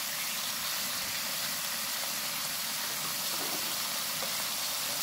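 Stir-fried lettuce stems (gungchae) sizzling steadily in chili oil in a frying pan, just after liquid seasonings have been added.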